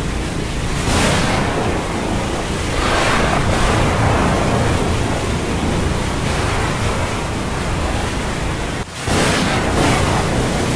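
Steady rushing noise of a storm, swelling every few seconds, with a brief drop about nine seconds in.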